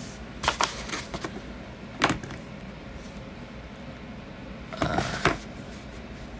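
A few short knocks and rustles from the phone and body moving close to the microphone, over a steady low hum.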